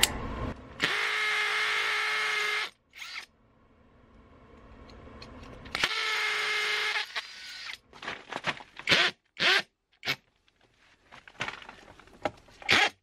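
Cordless hammer drill running in hammer mode, boring into a concrete block wall in two bursts of a steady whine, the first about two seconds long and the second about one. From about eight seconds in come several short sharp knocks and clicks, the loudest of them louder than the drill.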